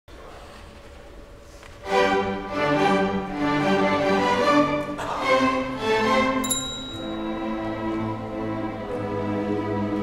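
School string orchestra of violins, violas and cellos beginning a piece: about two seconds of quiet hall sound, then the whole ensemble comes in suddenly and loudly with bowed notes, settling into steadier held notes about seven seconds in.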